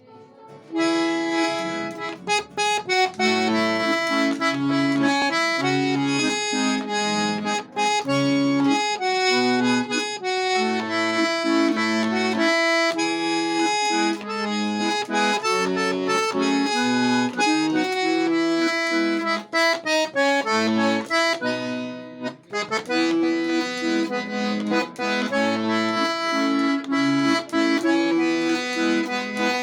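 Solo accordion playing a melody with chords over changing bass notes. There is a brief break in the playing about three-quarters of the way through.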